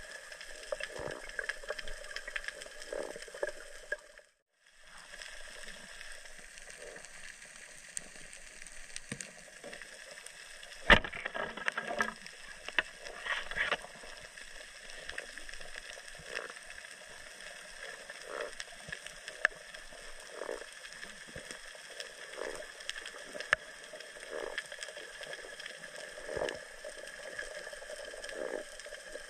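Muffled underwater sound heard through a camera's waterproof housing on a night spearfishing dive: a steady hiss with soft water swishes about every two seconds. The sound cuts out briefly about four seconds in, and a single sharp knock about eleven seconds in is followed by a few seconds of crackling.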